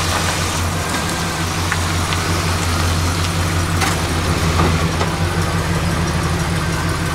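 1983 Buick Electra Estate wagon's 5.0-litre V8 idling steadily, a low even hum, with a few faint clicks over it.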